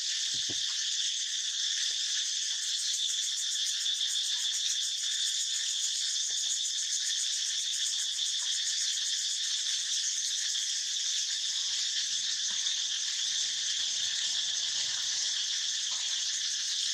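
Steady high-pitched chorus of insects, a continuous fine pulsing drone that doesn't let up.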